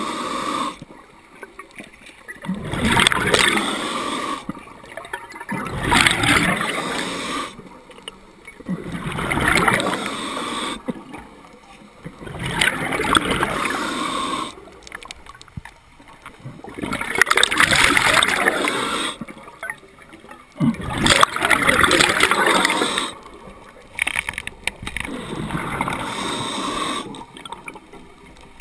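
Scuba diver breathing through a regulator underwater: a hiss on each inhale and a bubbling rush on each exhale, repeating about every three seconds.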